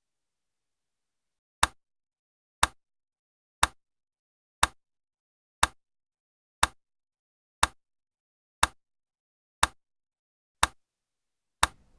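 Eleven sharp ticks at an even one per second, like a clock ticking, over dead silence. The synth itself is not heard.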